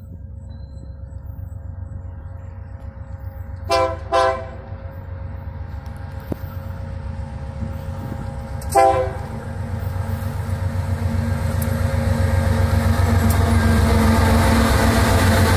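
Diesel-electric freight locomotive approaching and drawing alongside, its engine rumble growing steadily louder. It sounds two short horn blasts about four seconds in and a single blast about nine seconds in.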